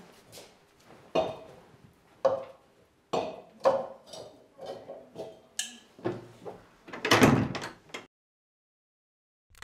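A string of knocks and clinks, some ringing briefly, as pewter tankards are picked up and set down on a wooden table, with a louder, longer clatter about seven seconds in before the sound stops.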